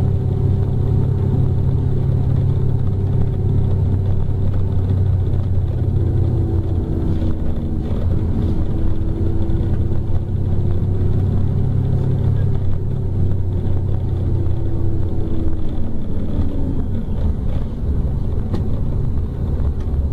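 Scania K310 coach's rear-mounted diesel engine heard from inside the cabin while under way: a steady low drone. The engine note climbs slowly, then falls away about three-quarters of the way through.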